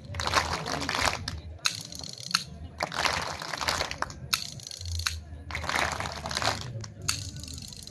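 Kartal, wooden hand clappers with metal jingles, clacking in short clattering strokes at an uneven pace of roughly one a second.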